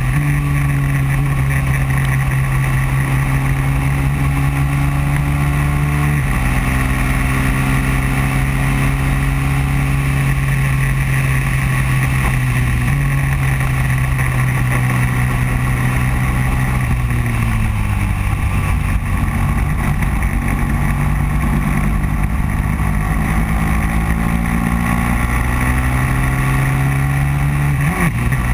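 Racing kart engine running at speed, heard onboard: a steady high-revving drone whose pitch steps a few times, sags for a few seconds past the middle and climbs again toward the end, with a brief dip and jump back up just before the end.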